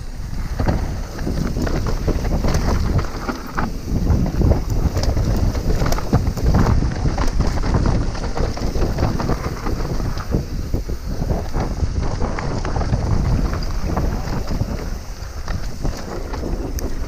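Wind buffeting the microphone of a camera on a Trek Remedy mountain bike descending a dirt and gravel trail at speed. The tyres crunch over the surface and the bike rattles over bumps in many quick knocks.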